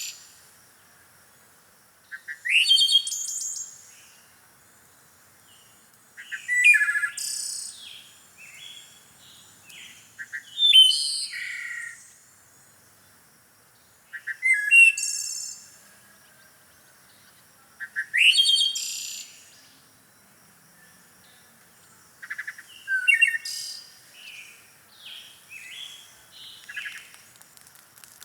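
Songbirds singing: a loud, varied phrase of quick high chirps and trills about every four seconds, with softer short calls in between.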